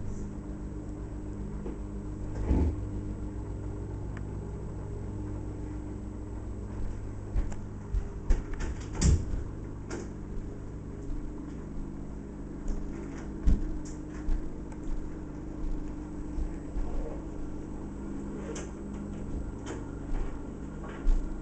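A steady low hum, broken by scattered clicks and knocks: one a couple of seconds in, a cluster around the middle, another a little later, and several near the end.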